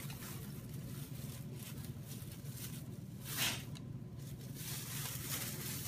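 Paper bag rustling and crinkling faintly as a dog noses into it, with one louder crinkle about three and a half seconds in, over a low steady hum.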